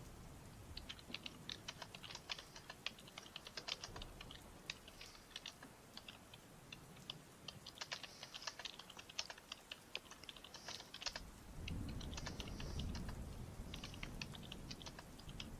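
Typing on a computer keyboard: quick, uneven runs of key clicks with short pauses between them. A low rumble comes in about two-thirds of the way through, under the typing.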